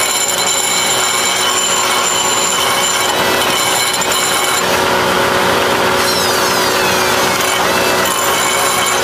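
Pneumatic die grinder running at high speed, grinding the cutting edge of a steel finishing-mower blade to sharpen it. A steady high whine with grinding noise, which changes pitch a little past halfway.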